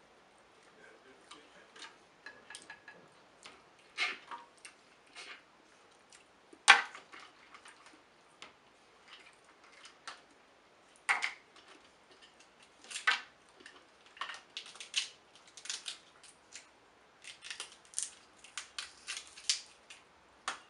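Snow crab leg shells being cracked and snapped apart by hand, a series of sharp cracks and clicks, the loudest about seven seconds in, with quicker runs of small clicks near the end.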